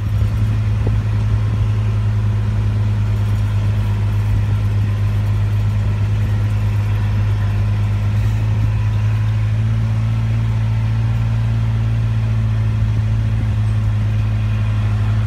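Tractor engine running steadily while pulling a mechanical tree planter through the field, a constant low hum with no change in speed.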